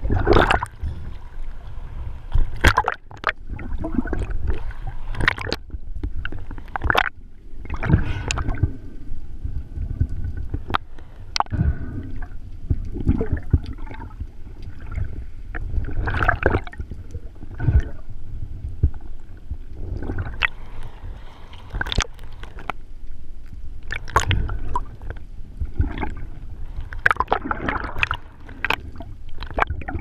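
Water gurgling and rumbling against an underwater camera housing, with many irregular sharp clicks and knocks as a freediver moves through the water and handles a speared fish.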